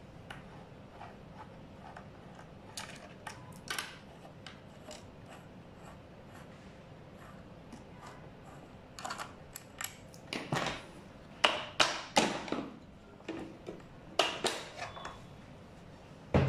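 Small metal clicks and scrapes from a T-handle hex key working the deck screws of an electric scooter, sparse at first, then a run of louder, sharper clicks and knocks about nine seconds in as the screws and deck cover are handled.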